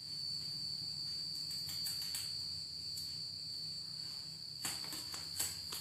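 Crickets trilling, one steady high-pitched note, over a low hum. A few soft rustles and taps come near the end.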